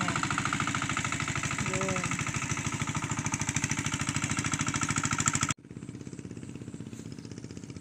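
Hand tractor's engine running with a fast, even beat while it plows a flooded rice field. About five and a half seconds in, it drops suddenly to a quieter, steadier engine sound.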